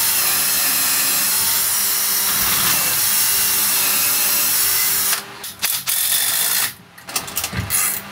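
Cordless drill boring into a painted wooden block, running steadily for about five seconds and then stopping, followed by a few scattered clicks and knocks.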